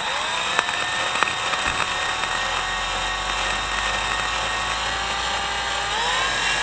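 Cordless drill spinning a diamond-coated bit into a glazed ceramic tile at low speed with light pressure: a steady motor whine over a gritty grinding, rising as the drill spins up at the start. About six seconds in, the whine climbs in pitch.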